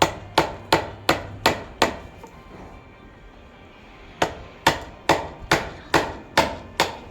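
Hammer blows struck at a steady pace of about two and a half a second: six, a pause of about two seconds, then seven more, each with a short ring.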